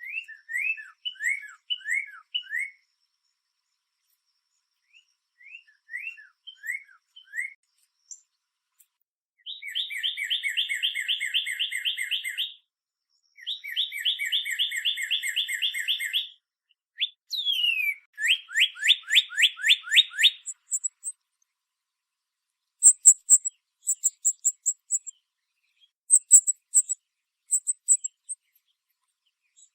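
Northern cardinal singing: repeated down-slurred whistled notes, then two long rapid trills and a fast run of slurred notes in the middle. In the last several seconds come groups of short, high, metallic chip notes.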